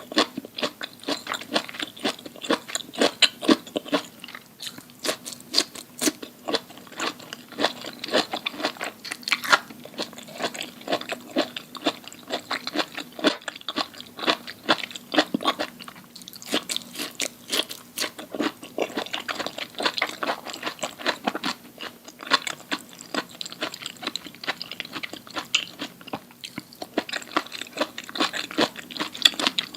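Close-miked crunchy chewing and biting of food, with dense, irregular crackles all through and a few louder crunches.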